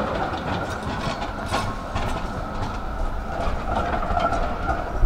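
Tram running along its track: a steady rumble of wheels on rails, with sharp clicks and rattles as it rolls.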